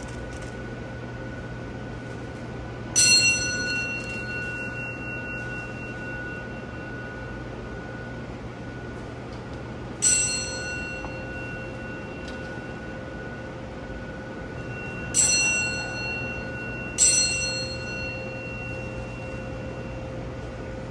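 A bell struck four times, each strike ringing out and fading over several seconds; the last two come close together.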